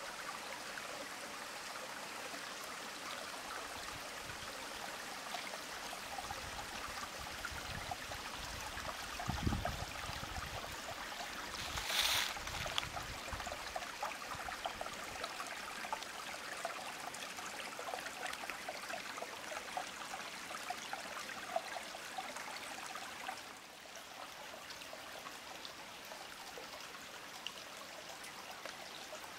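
Shallow stream at the source of the Baias river, trickling and babbling steadily over limestone rocks. A low thump comes a little before ten seconds in, and a short, louder rush of noise comes at about twelve seconds. The water sound drops slightly in level about twenty-three seconds in.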